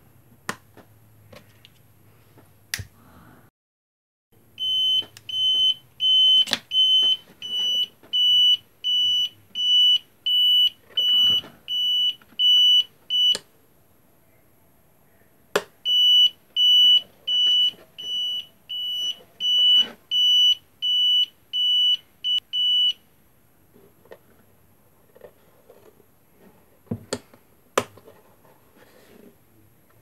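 Buzzer of a homemade fire alarm beeping a high tone about twice a second, in two runs of several seconds with a short break between. A few sharp clicks come before, between and after the runs.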